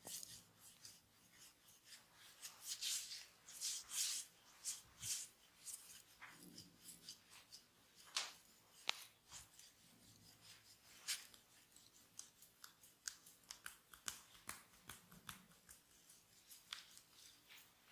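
Massage hands working on oiled skin: quiet, irregular short crisp swishes and clicks, in loose clusters.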